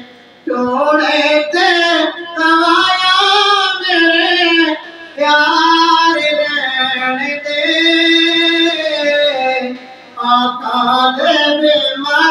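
A man singing a naat (Islamic devotional song) unaccompanied into a microphone, in long wavering melodic phrases with short pauses between them.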